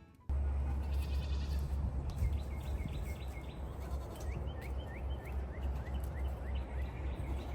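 Outdoor farmyard sound with wind rumbling on the microphone. A goat bleats about a second in, and a string of short, high chirps follows through the middle.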